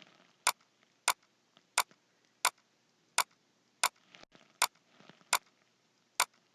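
Sharp clicks repeating at a steady pace, about one every 0.7 seconds, over faint background hiss.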